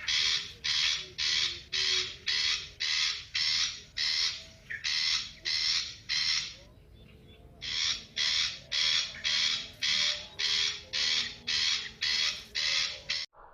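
Harsh, rasping reed-warbler (kerak basi) call repeated steadily about twice a second, with a break of about a second some seven seconds in, cutting off suddenly near the end.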